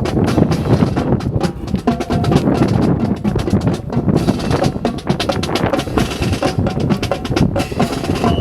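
Drill rifles clacking and slapping in quick, irregular succession as a rifle drill team spins, catches and hand-slaps their rifles, over a low wind rumble.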